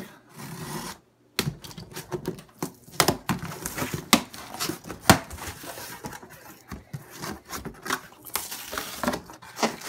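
A knife slitting the packing tape on a cardboard shipping box, then the cardboard flaps being pulled open and handled: scratchy rustling and tearing with many sharp clicks and knocks, the sharpest a few seconds in.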